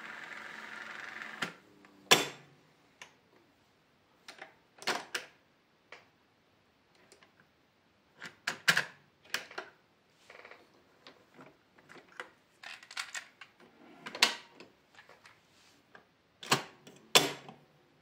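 JVC CD-1770 cassette deck's transport: a steady whirr of the mechanism stops about a second and a half in. Then comes a series of sharp mechanical clicks and clunks as the piano-key controls and the eject key are pressed, the cassette door pops open, the cassette is taken out and the door is shut.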